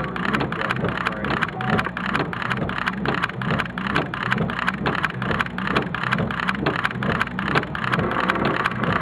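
Heavy thunderstorm rain falling steadily, with many close drop strikes, over a steady low hum.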